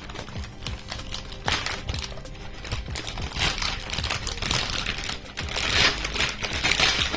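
Motherboard packaging being handled: rustling with scattered small clicks and knocks as the board is taken from its box, heaviest about a second and a half in and again in the last couple of seconds.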